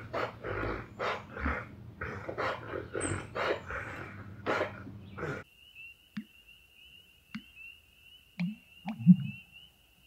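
American black bear huffing: a quick run of breathy puffs, two or three a second, that stops suddenly about five seconds in. Then an American bittern gives its low, gulping 'bloonk-a-doonk' call in a few short notes, over a steady high trill.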